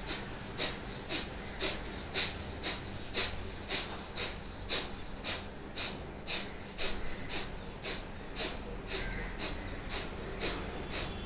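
Kapalbhati breathing through one nostril: a steady train of short, forceful nasal exhalations, about two a second, each a sharp puff of air with passive inhalations between. It stops near the end.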